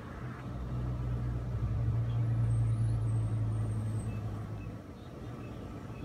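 A motor vehicle passing by: a low engine hum swells over about two seconds, then fades away about five seconds in.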